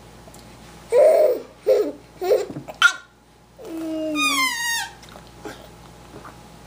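Baby babbling in a few short bursts, then one long falling coo about four seconds in.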